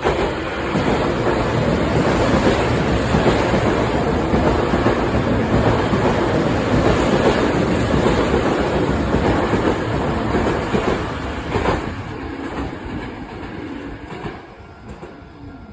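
Hankyu Railway limited express train passing through a station at speed without stopping: a loud, steady rush of wheels and running gear on the rails, with a sharp clack about twelve seconds in, then fading as the train moves away.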